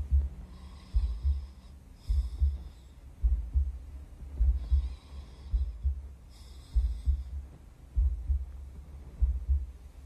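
Slow heartbeat: low double thumps, lub-dub, a little under once a second apart and very even. A faint hiss comes and goes four times in the background.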